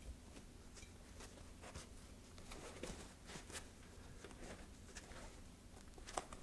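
Faint rustling and light ticks of hands working a foam puppet head, squeezing the foam and pressing a cardboard mouth plate into place, with one sharper click near the end.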